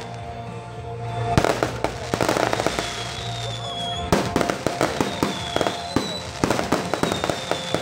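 Aerial fireworks going off: a string of sharp bangs and crackles, a big bang about a second and a half in and a denser run of bursts from about four seconds. Music plays steadily underneath.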